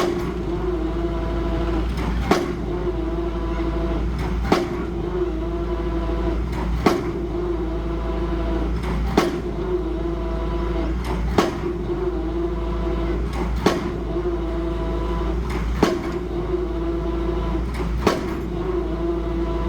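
A steady mechanical hum with a sharp click or knock about every two and a quarter seconds, in a regular repeating cycle.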